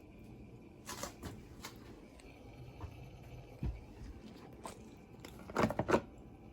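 Scattered sharp clicks and knocks, a few single ones and then a quick cluster of four louder ones near the end.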